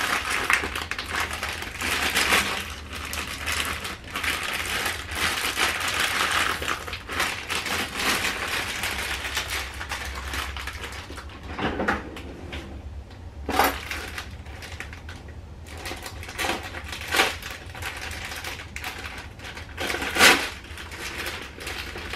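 Plastic packet crinkling and rustling in hands that are struggling to open it. A dense run of crackles for about ten seconds, then scattered louder crinkles and taps.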